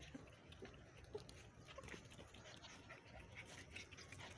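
German Shepherd puppy, faint: a few short, soft whimpers in the first second or so, over low background noise.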